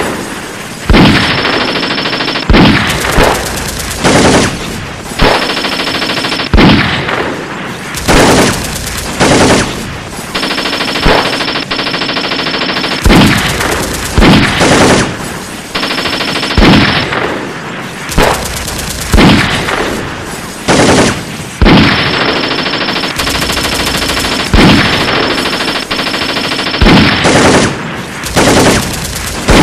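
Gunfire sound effects: about a dozen bursts of rapid automatic fire, each one to three seconds long and each opening with a loud shot, repeated throughout.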